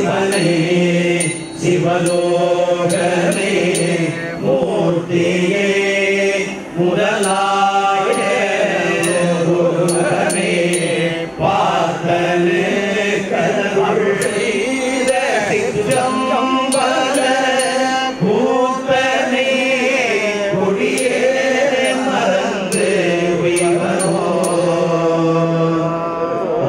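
Hindu temple priests chanting Vedic mantras together in a continuous, rising and falling melodic recitation.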